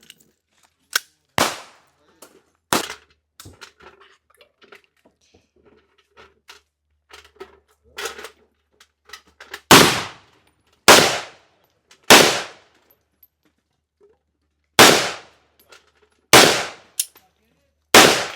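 Gunshots: two loud shots in the first three seconds, fainter scattered shots after them, then a steady string of six loud shots from about ten seconds in, roughly one every second and a half.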